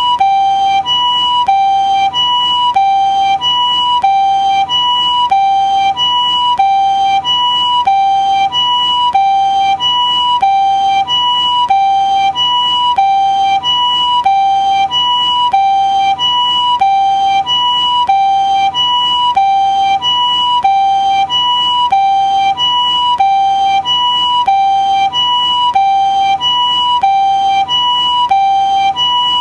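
Japanese ambulance two-tone siren sounding its "pee-paw" pattern: a higher and a lower tone alternate about once a second each, over and over, steady in pitch and loudness.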